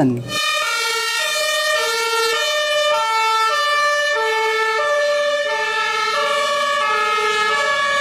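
Two-tone siren of an Austrian emergency-doctor ambulance on a run, stepping back and forth between a low and a high note, the pitch changing about twice a second. It starts about half a second in.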